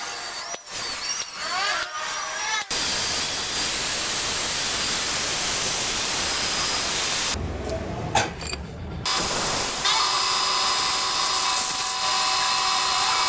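Metal lathe machining brass: the cutting tool squeals in short rising glides at first, then a loud steady hiss of machining, broken by a quieter stretch with a sharp click near the middle.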